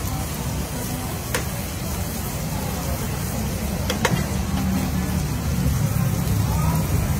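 Metal tongs clicking sharply against a frying pan twice, about a second and a half in and again about four seconds in, over a steady low rumble.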